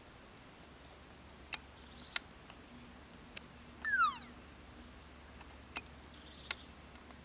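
Four sharp clicks from the knobs and switches of a Pulse Star II Pro metal detector's control box being set. About four seconds in comes the loudest sound, a single short chirp sliding down in pitch.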